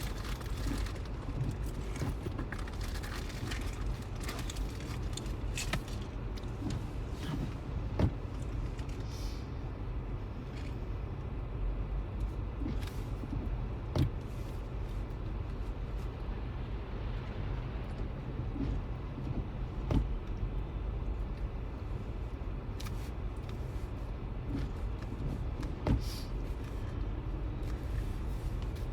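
Steady low road and engine rumble heard inside a moving car's cabin, with a short sharp click about every six seconds.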